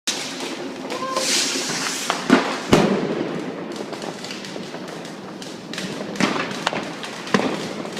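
Fireworks and firecrackers going off: a continuous crackle of many small bangs, with sharp louder bangs, two close together about two and a half seconds in and more near six and seven and a half seconds.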